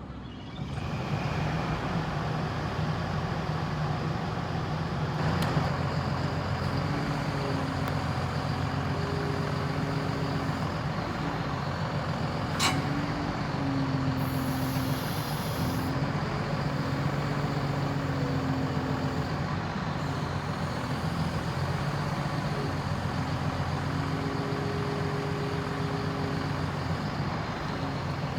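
Caterpillar 340F excavator's diesel engine running steadily, with higher tones that come and go over it. Two sharp knocks, about five and twelve seconds in.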